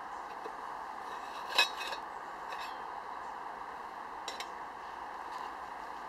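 Metal clinks from a stainless steel mess tin and its lid: one sharp clink about one and a half seconds in, then a couple of light taps a little after four seconds. A steady background hiss runs underneath.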